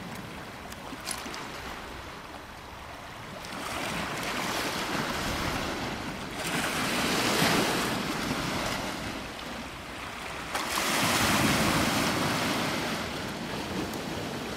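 Sea waves breaking and washing up a beach, with two louder surges of surf, the first about six to eight seconds in and the second about eleven seconds in.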